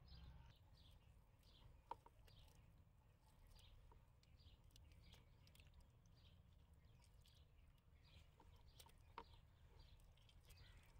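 Near silence with faint bird chirps in the background and two faint clicks, one about two seconds in and one near the end.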